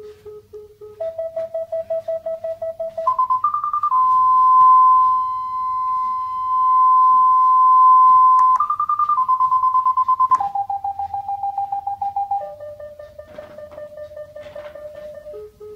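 FenSens wireless parking sensor's smartphone app sounding its proximity warning beeps. The beeps get faster and higher as the sensor nears a wall, become one continuous tone for about four seconds at the closest point, then slow and drop in pitch step by step as it moves away.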